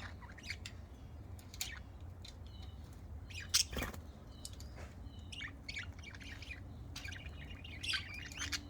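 Budgerigars chirping in short, scattered calls, with a sharper, louder call about three and a half seconds in and a cluster of chirps near the end, over a low steady rumble.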